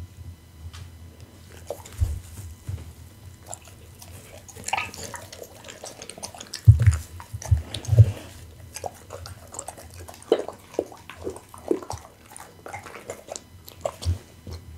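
A pit bull chewing raw rabbit and pumpkin close to a microphone: wet smacking and sharp crunching bites, with a few heavy low thumps about seven to eight seconds in.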